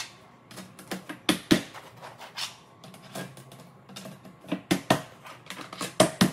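Clear plastic waffle grids clicking and clattering as they are set down and slotted together edge to edge: an irregular run of light plastic taps, with a few sharper clicks about a second and a half in and again near the end.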